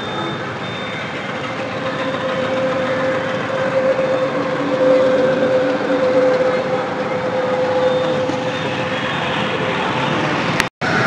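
Steady din of a busy market street dominated by traffic noise, with a thin held tone for a few seconds in the middle. The sound breaks off for an instant near the end.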